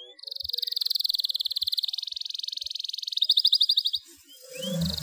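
Yellow domestic canary in breeding condition singing: a short rising chirp, then a long, fast, high trill that changes to a louder, coarser trill about three seconds in and stops a second later. Another rising chirp follows, and the trill starts again near the end.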